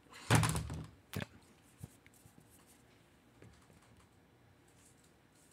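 Handling noise as a rubber duck is set on top of a jar on the desk: a loud knock about a third of a second in, then two sharp clicks over the next second and a half.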